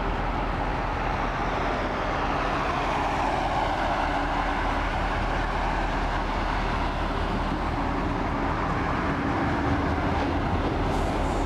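Diesel locomotive hauling a loaded ore train drawing closer, its low engine drone growing stronger near the end, mixed with cars passing on the road close by.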